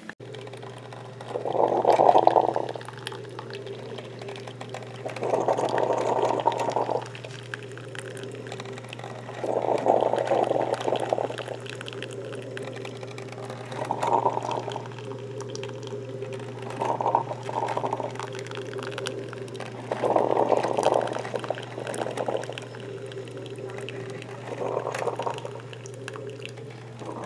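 Cuisinart two-cup drip coffee maker brewing into a paper cup. A steady hum runs under gurgling spurts of hot water that come roughly every three to four seconds.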